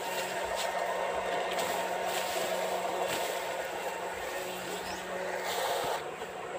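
Electric fishing rig's inverter humming steadily, several fixed tones over a hiss, dropping a little in level about six seconds in.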